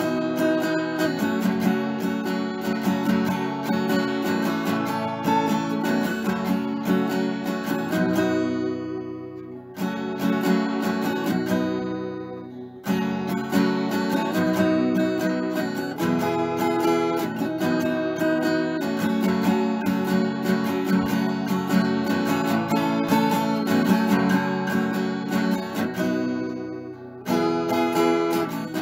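Background music of strummed acoustic guitar chords, dipping briefly three times.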